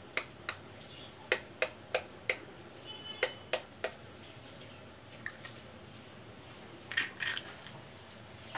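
A raw egg tapped against the rim of a ceramic bowl to crack its shell: sharp clicks about three a second, in groups of two to four. About seven seconds in, a brief crackle as the shell is pulled apart and the egg drops into the bowl.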